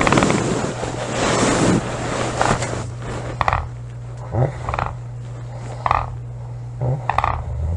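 A woman snoring: a long, noisy breath over the first two seconds, then a run of short snores spaced about a second apart, over a steady low hum.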